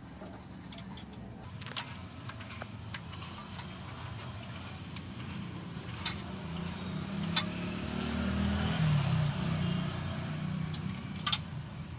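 A vehicle engine running steadily, its pitch wavering for a couple of seconds near the middle, with scattered light metallic clicks.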